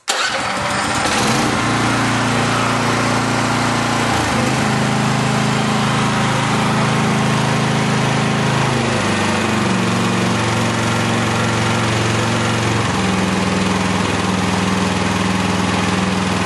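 Jansen MB 500's gasoline engine catching on the key start with the choke on, its first run, and then running steadily, its speed shifting down in steps about four and nine seconds in and changing again near the end.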